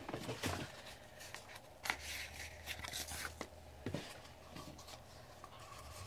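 Quiet rustling and scattered clicks of hands handling paper and cardboard toy pieces and a stiff wire, with a longer rustle about two seconds in.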